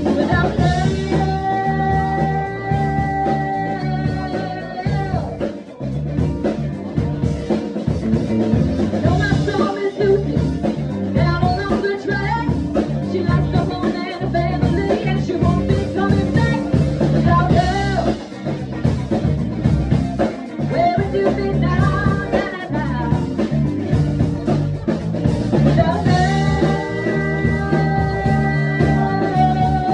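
Live band playing a funk-rock cover, with a woman's lead vocal over drum kit and band. The singer holds long notes about a second in and again near the end.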